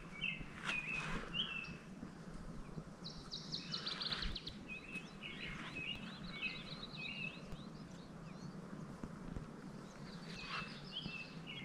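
Songbirds calling: short, repeated high chirps, with a quick run of rapid notes about three seconds in.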